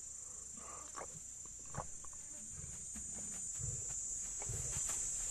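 Steady high-pitched chirring of insects, with a few faint clicks about one and two seconds in and soft low rumbles in the second half.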